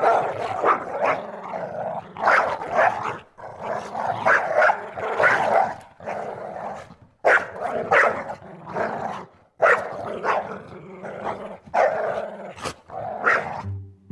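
Prairie dogs growling and barking in repeated short, harsh bursts, grouped in runs with brief pauses between them.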